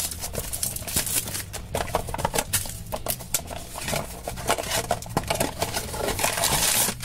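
Clear plastic shrink-wrap crinkling and crackling as it is peeled off a small cardboard blind box. Near the end this gives way to the scrape and tap of the cardboard flap being pried open. A low steady hum runs underneath throughout.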